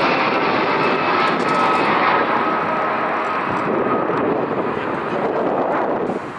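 Heavy jet airliner coming in to land, its engines running with a steady rush and a faint whine. The noise slowly fades.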